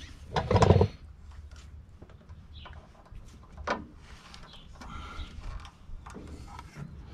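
Metal clinks and scrapes of a pipe wrench being fitted and worked on the seal nut of a hydraulic loader lift cylinder, with one loud clunk about half a second in and scattered small clicks after.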